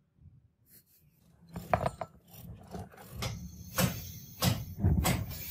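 Metal clinking and knocking: a handful of irregular sharp strikes with short ringing, growing louder from about a second and a half in.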